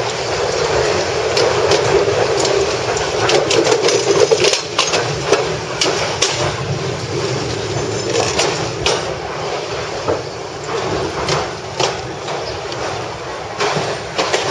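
Myanmar Railways railcar heard from on board as it slows into a station: steady running noise with many sharp knocks as the wheels cross rail joints and points, the noise easing off towards the end.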